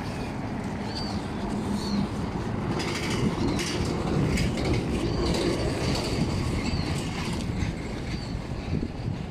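Low rumble of road traffic that swells around the middle as a vehicle passes and then eases off, with a few short high chirps above it.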